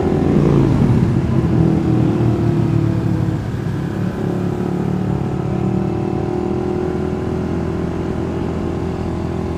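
Suzuki GSX-R150's single-cylinder four-stroke engine running at low city speed, heard from the rider's position; its note falls in pitch about a second in, then holds steady.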